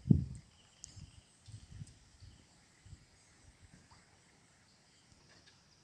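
Wind buffeting the microphone in irregular low rumbling thumps, strongest at the start and dying away after a couple of seconds. Insects chirp faintly behind it.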